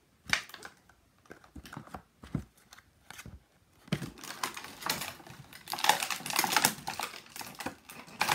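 Clear plastic toy packaging being handled: a few separate clicks at first, then from about four seconds in a dense run of crackling and clicking as the hard plastic case is flexed and moved.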